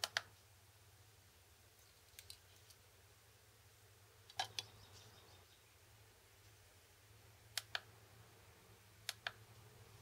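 Faint pairs of sharp clicks from the plastic buttons of a digital kitchen scale being pressed, five pairs in all, about two seconds apart. The pair about four seconds in is a fuller clack, as a Victorinox Swiss Army knife is set down on the scale's pan.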